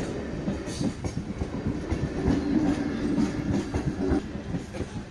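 Moving train: wheels rattling and clattering over the track with a constant rumble. A steadier tone joins for about two seconds in the middle.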